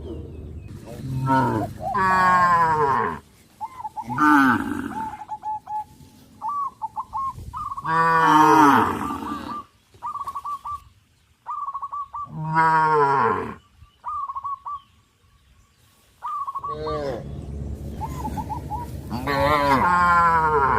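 Cows mooing over and over, each moo a long call that falls in pitch, with several overlapping near the end. In the gaps between moos, short high bird calls repeat.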